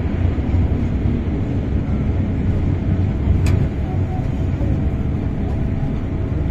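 MTR Island Line M-Train running through the tunnel into a station platform, a steady low rumble heard from inside the carriage, with one sharp click about three and a half seconds in.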